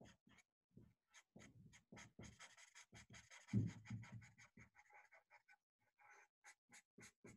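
Faint black felt-tip marker scratching on paper in many short, quick strokes as the outline is gone over and thickened. About halfway through there is a soft low thump.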